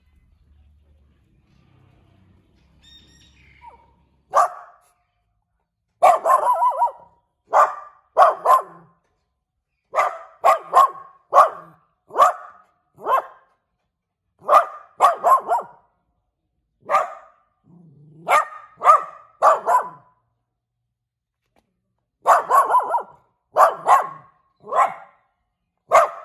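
Small dog barking repeatedly at the camera in short volleys of two to four barks. The barking starts about four seconds in, after a quiet start.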